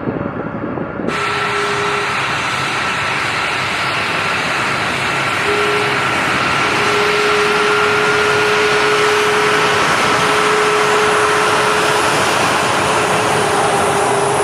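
Turbofan engines of a C-5M Super Galaxy running steadily: a loud rushing noise with a steady whine over it. It comes in at a cut about a second in.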